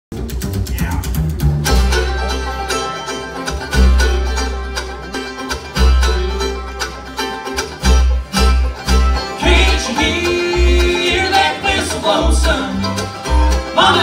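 Live bluegrass band playing an instrumental opening on banjo, fiddle, mandolin, acoustic guitars and upright bass. The bass holds long notes at first, then plays short, evenly spaced notes from about eight seconds in.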